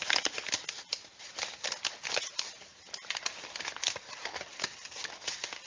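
Stiff paper strawberry cut-outs rustling and clicking as a pipe-cleaner caterpillar is pushed through their holes: a quick, irregular string of crisp paper clicks and crinkles.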